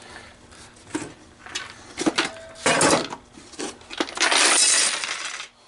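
Coins and loose objects rattling and sliding around inside an American Changer first-generation green stripe coin hopper as it is tipped and shaken: a few separate clinks and knocks, then a long rattle about four seconds in.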